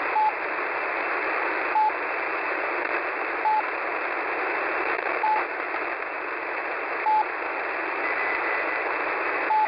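Shortwave radio beacon on 4102 kHz received on a KiwiSDR: a short, steady-pitched beep about every second and three-quarters over a constant bed of static hiss.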